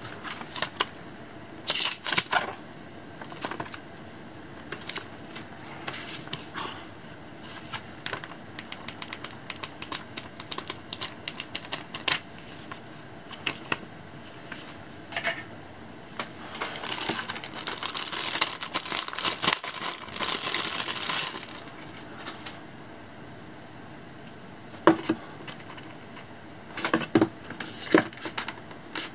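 Hands unpacking a monitor box: paper cards and leaflets rustling, and items and a coiled cable being lifted and tapped against styrofoam packaging, heard as irregular clicks and taps. A longer spell of paper rustling comes a little past the middle, and a quick run of clicks near the end.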